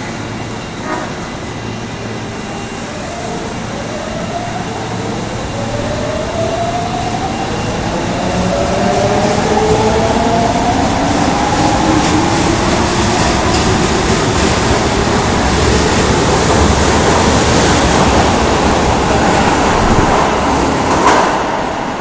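An Osaka Municipal Subway 22 series train pulls out of an underground station. Its traction motors whine in several parallel tones that rise steadily in pitch as it accelerates, over wheel and rail noise that grows louder as the cars pass. There is a brief louder jolt near the end.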